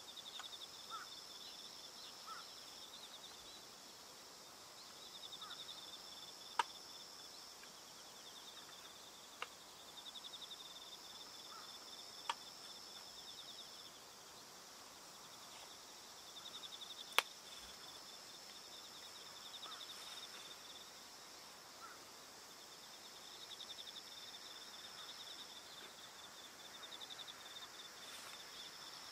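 Field insects chirping faintly in pulsed phrases a few seconds long, switching on and off over a steadier high trill. A few sharp clicks stand out, the loudest about two-thirds of the way through.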